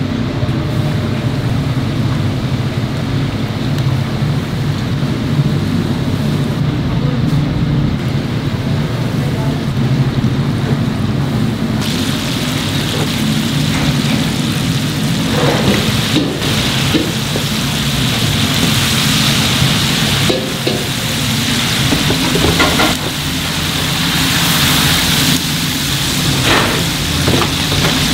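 Commercial kitchen noise: a steady low machine hum, joined about twelve seconds in by a loud sizzle of chicken deep-frying in oil, with a few short clatters of utensils.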